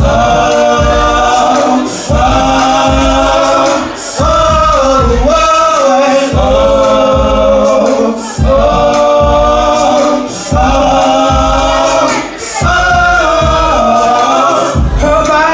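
R&B music with sustained, wordless sung vocal harmonies over a steady low beat, held in phrases about two seconds long.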